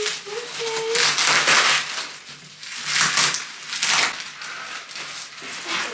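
Packaging rustling and crinkling as it is handled, in several bursts about a second apart.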